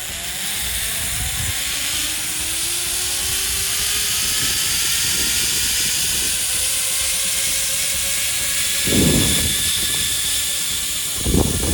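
Zip line trolley pulleys running along the steel cable: a steady hiss and whir, with thin tones slowly rising in pitch. Two low rumbles come near the end.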